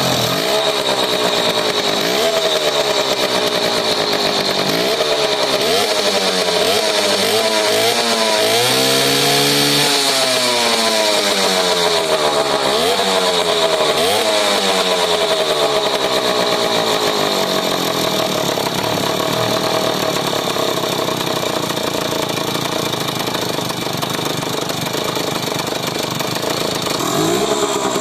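Balkan 50 moped's small two-stroke single-cylinder engine being revved, its pitch rising and falling several times in quick succession, then running steadily at a fast idle with a brief rev again near the end.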